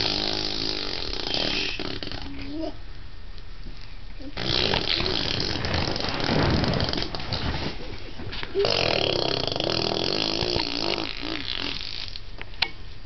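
Baby blowing raspberries: a buzzing, fart-like sound made with the lips, in three long stretches with short pauses between them.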